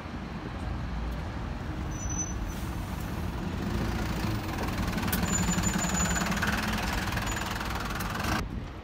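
Single-deck bus driving past close by, its engine running as it pulls away. It is loudest as it passes, and the sound cuts off suddenly near the end.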